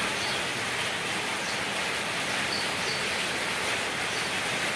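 Steady rain falling outside, an even hiss with no breaks.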